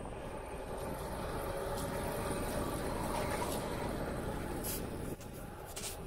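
Wind rushing over the microphone of a bicycle-mounted camera, with rumble from riding on asphalt. It swells in the middle, drops abruptly about five seconds in, and there are a couple of light clicks near the end.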